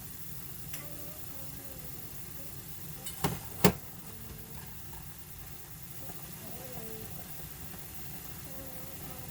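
Food sizzling steadily in a hot pan, with a cooking utensil knocking against the pan a few times, the loudest knock about three and a half seconds in.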